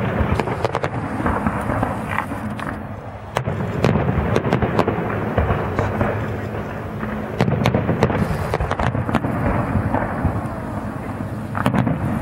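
Aerial fireworks display: rapid sharp pops and bangs of bursting shells over a continuous low rumble, with fresh volleys growing louder about three and a half and seven and a half seconds in.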